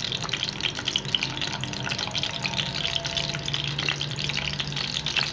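Masala-stuffed okra sizzling and crackling in hot oil in a frying pan as more pods are laid in, a steady hiss full of small pops.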